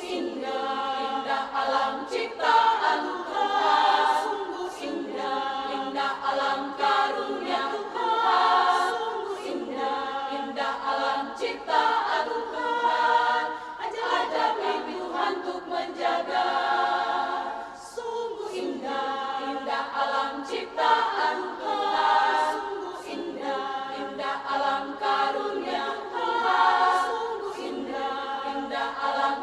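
Women's choir singing in several voice parts, with a short break between phrases about two-thirds of the way in.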